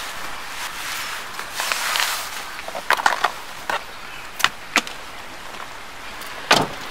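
A few scattered knocks and taps of things being handled inside a car, the loudest about six and a half seconds in, over a steady hiss of rain.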